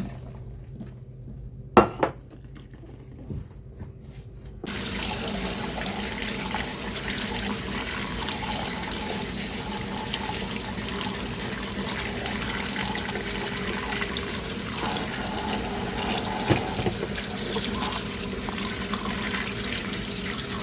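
Kitchen tap turned on about five seconds in and running steadily into a sink while parboiled chicken is rinsed under it; a single knock comes earlier, about two seconds in.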